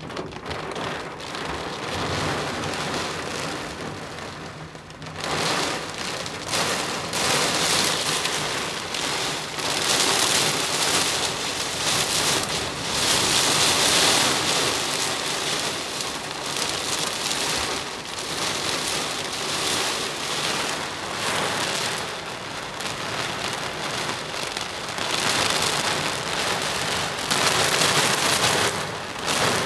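Heavy rain hitting the windshield and roof of a Toyota Hiace camper van, heard from inside the cab. It turns suddenly heavier about five seconds in, then swells and eases in gusts.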